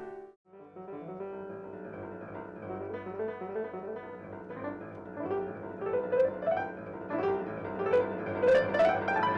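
Solo piano playing a classical piece. After a brief break about half a second in, a new passage starts with quick rising runs and grows louder toward the end.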